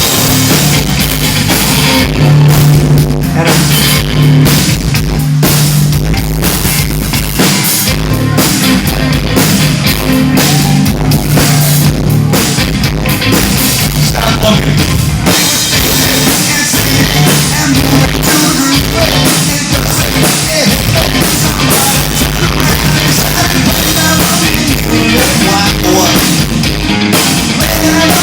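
Rock band playing loudly: a drum kit driving a steady beat under sustained bass notes and dense guitar.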